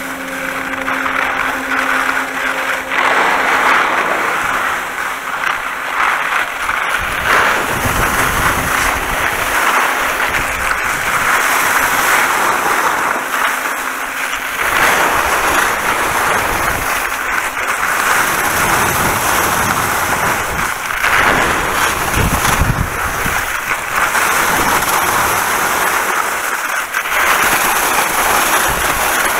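Skis hissing and scraping over wet snow on a downhill run, with wind buffeting the microphone in low gusts. A steady hum sounds for the first few seconds.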